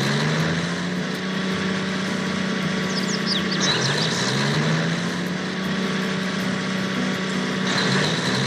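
A small motor running steadily with a buzzing hum. Its pitch dips and climbs back up three times.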